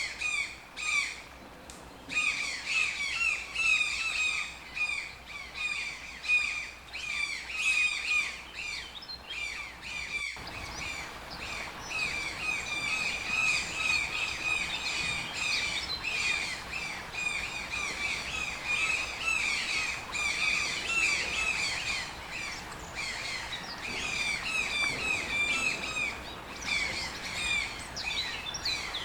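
Toucan calling: a long run of short, harsh notes repeated several times a second, each dropping slightly in pitch. The background changes abruptly about ten seconds in, at a recording splice.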